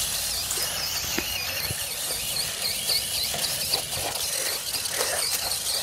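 Small electric RC car driving over grass and dry leaves, with a steady high, wavering whine and a few faint knocks as it bumps along.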